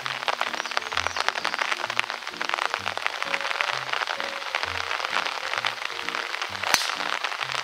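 Background music with a steady, repeating bass line over the hiss and patter of heavy rain. Near the end a single sharp crack: a driver striking a golf ball off the tee.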